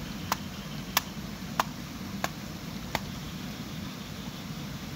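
Five sharp knocks, evenly spaced about two-thirds of a second apart, stopping about three seconds in, over a steady low rumble.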